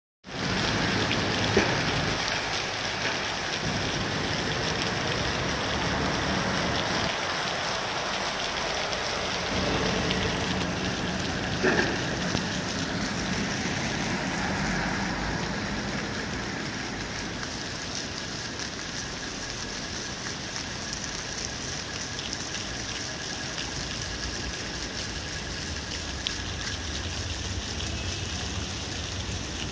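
Steady outdoor hiss of street and building-site noise, with a sharp knock about a second and a half in and a double knock near the middle.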